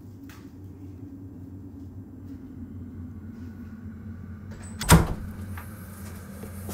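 A low steady hum, then about five seconds in a single loud bang of a door shutting.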